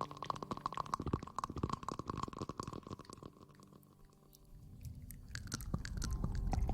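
Close-miked rustling: a dense run of fast crackles that thins out about three and a half seconds in, then a low rubbing rumble that builds toward the end.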